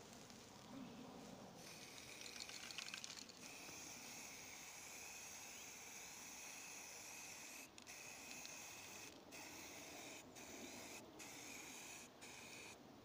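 Faint hiss of an aerosol spray-paint can spraying onto a wicker planter. It starts about one and a half seconds in, with a brief crackle soon after, and breaks off for moments several times in the second half as the nozzle is released and pressed again.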